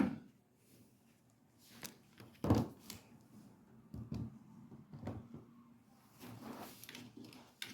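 Scattered light knocks and clicks of hands working inside a microwave oven's opened casing, pushing wire connectors back onto their terminals; the loudest knock comes about two and a half seconds in.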